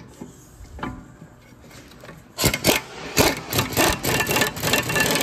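Power impact gun driving a caliper mount bolt into the rear steering knuckle. It starts about halfway through with a short burst, then hammers in a rapid, steady rattle. The bolt is running through threads heavily corroded in the knuckle.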